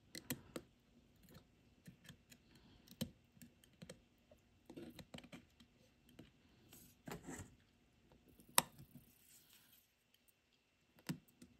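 Faint, irregular small clicks and light scrapes of steel tweezers on a button-cell watch battery and the plastic movement spacer as the new SR920SW cell is worked down into its holder. One sharper click stands out about two-thirds of the way through.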